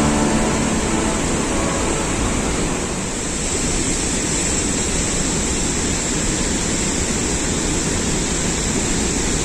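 Steady rushing water, an even hiss with no breaks.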